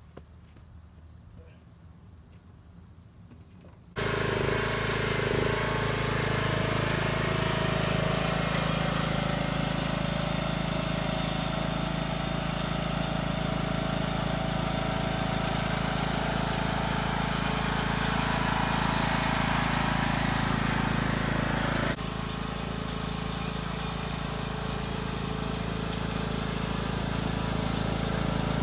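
Husqvarna YTH18542 riding lawn mower's 18.5-horsepower engine running steadily. The engine sound cuts in abruptly about four seconds in after a quiet start, and drops slightly in level near the end.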